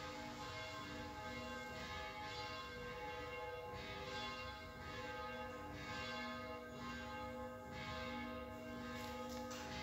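Church bells ringing, struck again and again so that their tones overlap and hang on between strikes.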